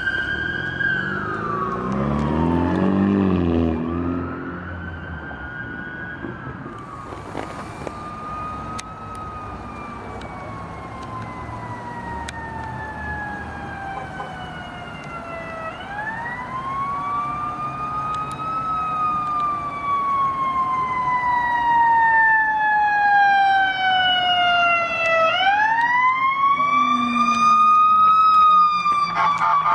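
Emergency vehicle siren on a wail, over and over a quick rise followed by a long, slow fall in pitch, louder again toward the end. About three seconds in, a heavy vehicle passes close by, its low engine note dropping in pitch.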